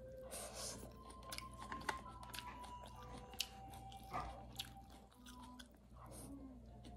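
A person chewing and biting food close to the microphone, with many small crunchy clicks and mouth sounds.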